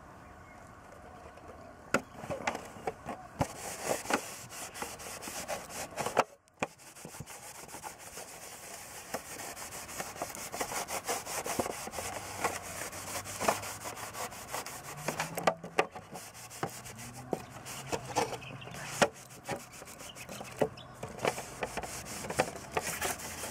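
A cloth wetted with methylated spirits rubbed back and forth over a plastic pocket bike body shell, a scratchy rubbing hiss broken by frequent sharp clicks and taps.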